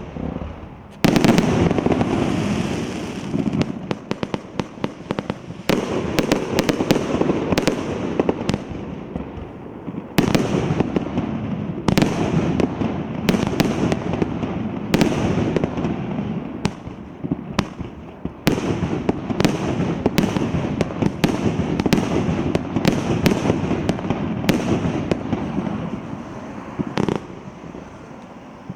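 A 68-shot cake firework with 1.2- and 1.5-inch tubes firing a rapid barrage: a long run of sharp bangs, several a second at times, with crackling in between. The last bang comes near the end.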